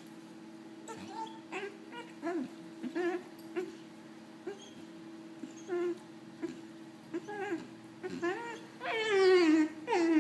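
Great Dane puppy whimpering in short, high whines, with a louder, longer whine near the end.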